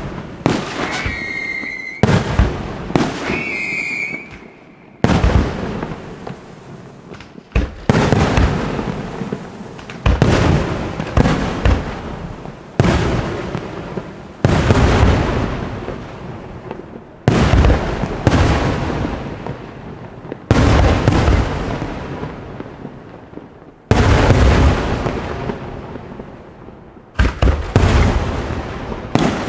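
Fireworks display: loud aerial shell bursts every one to three seconds, each bang trailing off in a long rumble and crackle. Twice in the first few seconds a short high whistle sounds.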